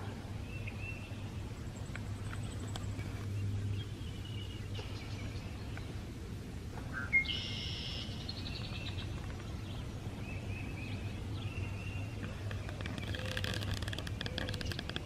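Songbirds calling and singing: scattered short chirps and whistles, a louder trilled song about seven seconds in, and a buzzy run of quick notes near the end.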